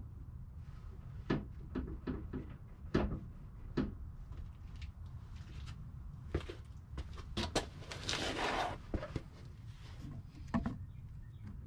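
Scattered clicks and knocks of hand work on a car's underside, over a low steady rumble, with a short rushing noise of under a second about eight seconds in.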